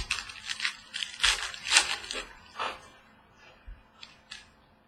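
Trading cards being handled and flipped through from a freshly opened pack: a quick run of papery rustles and slides for the first few seconds, then a few light clicks.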